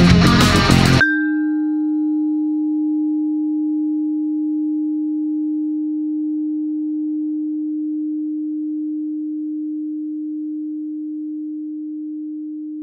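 Heavy guitar rock music cuts off abruptly about a second in, leaving a single held low pure tone that slowly fades as the song's closing note.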